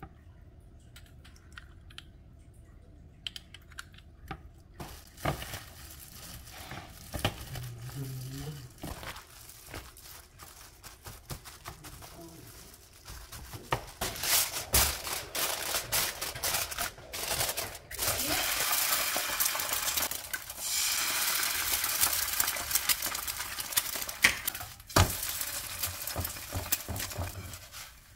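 A metal spoon scraping and knocking in a plastic bowl as julienned carrots are mixed with mustard, then, from about halfway through, a sheet of aluminium foil pulled off, torn and crinkled loudly over the bowl to cover it.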